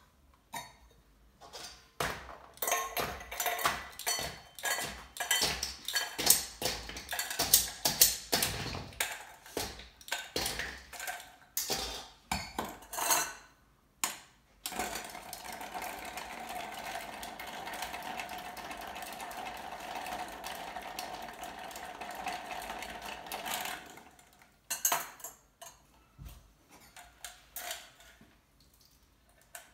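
A drink being mixed: ice and glassware clinking in quick, uneven clicks, then about nine seconds of steady liquid pouring into the glass, then a few more clinks near the end.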